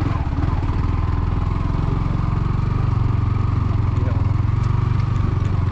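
Motorcycle engine running steadily while the bike is ridden, growing slightly louder about halfway through.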